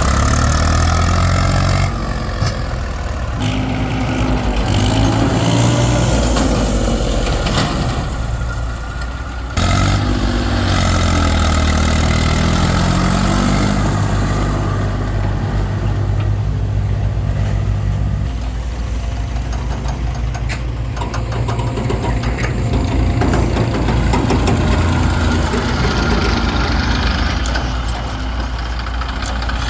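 Diesel engines of a tractor and a backhoe loader running, mostly at a steady idle, with a rise and fall in revs a third of the way through. The sound changes abruptly several times, as between joined clips.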